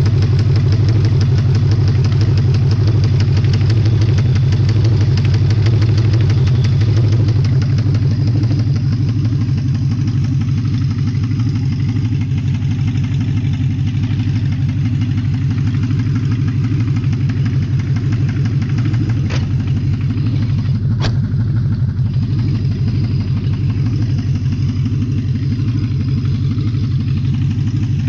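Audi V8 engine running steadily at idle with the unwanted noise its owner calls a bad sound; it settles slightly quieter about eight seconds in, and two brief clicks come a little after the middle.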